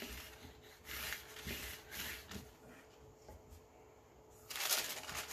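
Hand sanding the edge of a paper-covered wood block: a few separate rubbing strokes of sandpaper on paper and wood, about a second apart, the loudest near the end, scuffing the paper edges back to bare wood for a distressed look.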